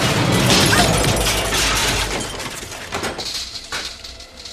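Shattering crash of breaking glass and debris, a dense clatter that thins out about two seconds in to a few separate knocks and clinks as pieces land.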